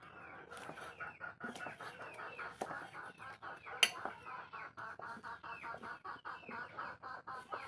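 Chickens clucking and chirping in a fast, continuous chatter, with scattered knife strokes on a wooden block. The loudest sound is one sharp knock just under four seconds in.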